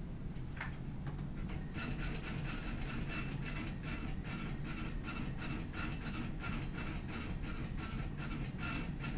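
Receipt printer at a bank teller station printing: a regular run of short mechanical strokes, about three to four a second, starting about two seconds in and going on steadily.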